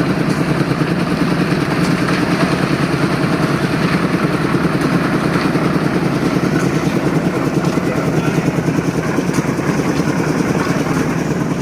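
An engine running steadily at a constant speed with a rapid, even beat.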